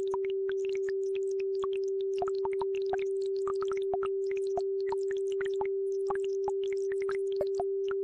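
A steady, unwavering sine tone, mid-low in pitch, held under babbling brook water: quick irregular bubbling and trickling plops, several a second.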